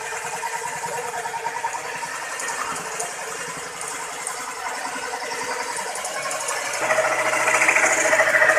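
Electric scroll saw running, its thin blade chattering up and down as it cuts through a wooden panel along a traced pattern. It grows louder about seven seconds in.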